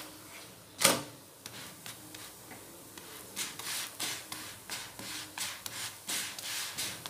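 Wooden spatula pressing and rubbing a paratha against a dosa tawa as it fries. There is one loud scrape about a second in, then a run of quick rubbing strokes, about three a second, through the second half.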